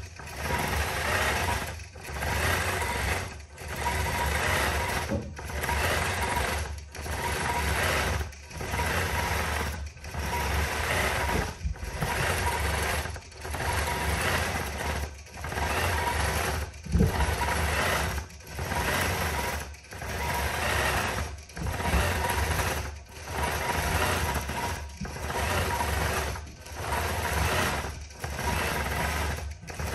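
Statler longarm quilting machine stitching, its needle running in stretches broken by brief pauses about every one and a half seconds.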